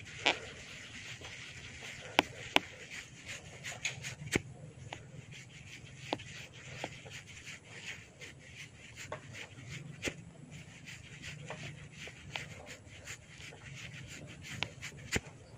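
Hair cracking: strands of hair twisted and pulled tight at the scalp, giving irregular sharp cracks and pops over a soft rubbing of hair.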